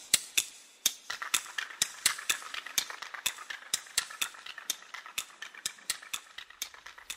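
Rapid, regular clicking, about four clicks a second, over a faint steady hum that starts about a second in.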